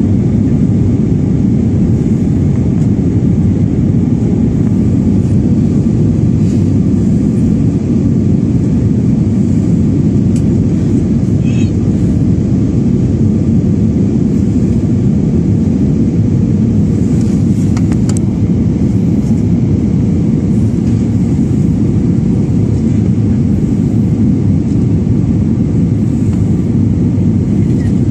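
Steady low rumble of jet engines and airflow heard inside the cabin of an Airbus A320-family airliner descending on approach to land.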